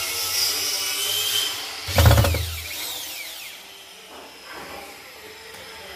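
Cordless drill driving a screw into a steel drawer-slide rail, its motor running steadily for about two seconds. Then comes a loud knock, and the motor whine falls away as it winds down.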